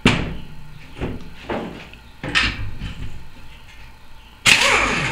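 A few separate clunks and knocks, then about four and a half seconds in a pneumatic impact wrench fires in a short loud burst, hammering loose the nut that holds the starter cup and flywheel on a Briggs & Stratton overhead-valve engine.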